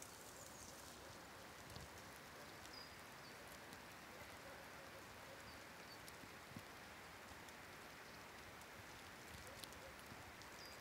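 Near silence: a faint, even patter of falling wet snow with scattered tiny ticks, and a few faint, short, high bird chirps.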